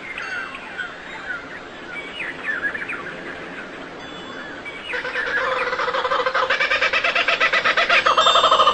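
Small birds chirping with short, quick falling notes. About five seconds in, a louder, rapidly pulsing call of about ten pulses a second starts and grows louder.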